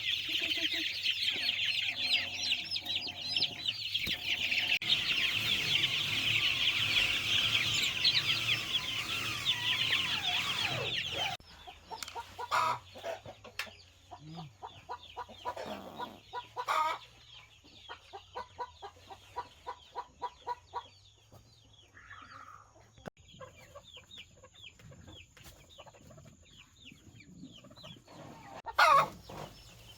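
Chickens clucking, with a dense chorus of high chirping for about the first ten seconds that stops abruptly. After that it is quieter, with short clucks repeating several times a second and one louder call near the end.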